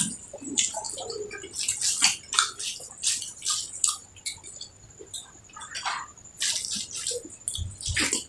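Close-up wet eating sounds: irregular smacking and squelching of chewing and of rice and curry being eaten by hand, in quick short bursts.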